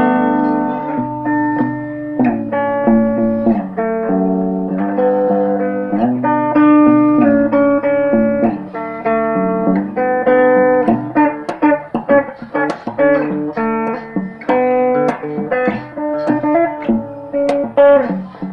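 Guitar playing a melodic instrumental line: held notes at first, then quicker picked notes in the second half.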